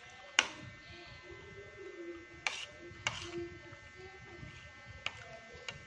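Metal fork and spoon clinking against a plate while eating rice: about five sharp clinks spread over a few seconds, the loudest about half a second in.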